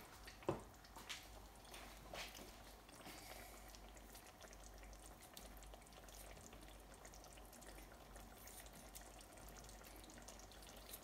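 Near silence: a few soft snips of kitchen scissors cutting shatkora (bitter citrus) into a pan of curry in the first seconds, then only a faint steady hiss.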